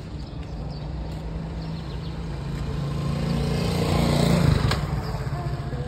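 A motor vehicle's engine running as it draws near, growing louder to a peak about four and a half seconds in, then fading as it passes.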